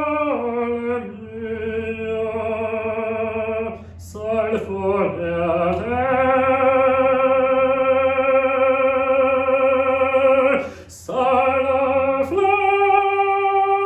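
A male opera singer singing unaccompanied: long held notes with vibrato and slides between pitches, broken by short breaths about four and eleven seconds in.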